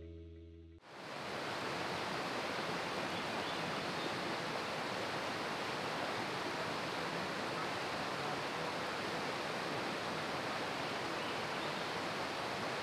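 Steady, even rushing of a river that starts about a second in, as the last guitar chord of the music fades out.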